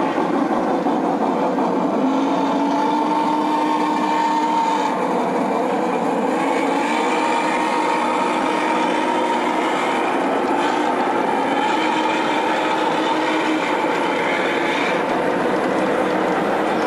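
G scale model trains running on a layout: a steady rolling rumble of wheels on track, with faint drawn-out tones coming and going.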